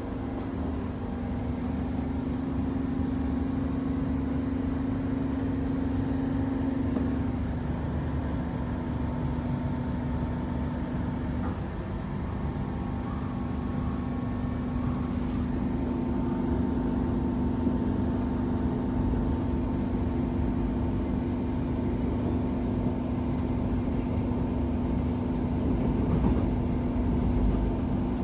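Queensland Rail New Generation Rollingstock electric train running, heard from inside the carriage: a steady electrical hum from the traction equipment over a low rumble of the wheels on the track. The hum shifts slightly in pitch twice, and a second, higher tone joins about halfway through.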